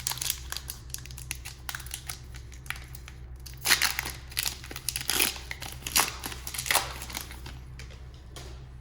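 Crinkling of a trading-card pack wrapper being handled and torn open, with a cluster of louder tears and crackles in the middle.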